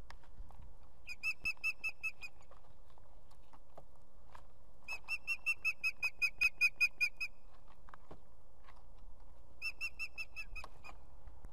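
Ospreys at the nest calling in three runs of short, high, whistled chirps, about five a second; the longest and loudest run comes about five seconds in.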